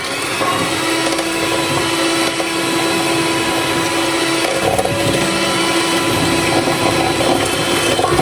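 Electric hand mixer running steadily, its beaters whipping eggs and sugar in a stainless steel bowl, with a steady motor hum.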